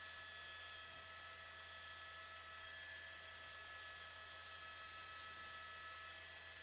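Faint, steady electrical hum with a few thin, constant high-pitched tones over it, and nothing else.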